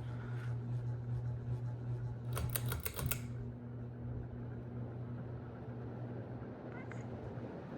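1992 Encon Casanova ceiling fan running with a steady low motor hum. About two and a half seconds in comes a quick run of sharp clicks lasting under a second.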